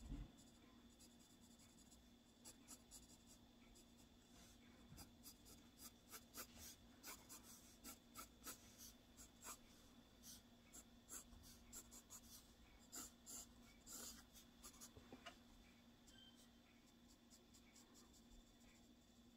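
Graphite pencil scratching on sketchbook paper in many short, quick strokes, faint throughout and busiest in the middle.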